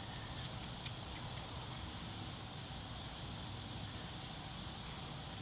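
Steady high-pitched drone of insects in the grass, with a low rumble underneath and a few faint clicks in the first second or so.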